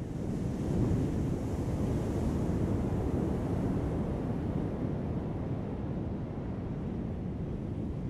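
Heavy ocean surf breaking on a beach: a low, steady wash of waves that swells about a second in and then slowly eases off.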